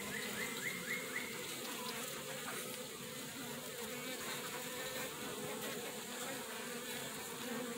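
Steady humming of a honeybee colony in an opened nuc box, many bees buzzing together over the frames.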